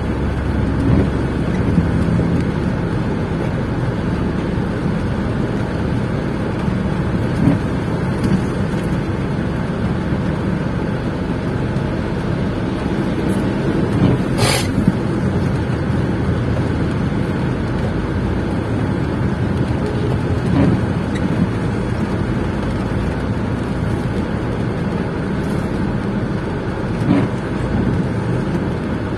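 Steady car noise heard from inside a car: a continuous low rumble and hiss, with one sharp click about halfway through.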